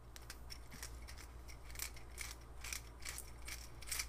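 Faint, irregular small plastic clicks and scratches from a freshly 3D-printed PLA roller bearing being handled and picked at, its support material being cleaned off, over a steady low hum.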